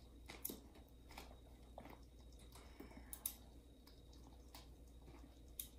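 Small scissor-style pet nail clippers snipping a ferret's claws: a few faint, sharp clicks spread over several seconds, the strongest about three seconds in.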